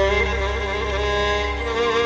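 Arabic pop music with long held notes from bowed strings over a steady bass.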